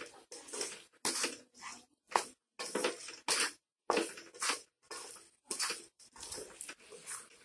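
Flat spatula stirring water chestnut sabzi and cream in a metal kadai: rhythmic scrapes against the pan, about two strokes a second, with a brief pause about halfway.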